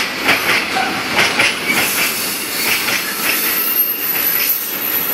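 Freight train of covered wagons rolling past close by, wheels clattering in a quick, uneven rhythm over rail joints and points above a steady rumble of wheels on rail.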